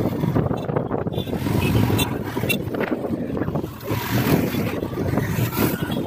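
Royal Enfield Himalayan BS6's 411 cc single-cylinder engine running as the motorcycle rides through city traffic, with wind buffeting the microphone.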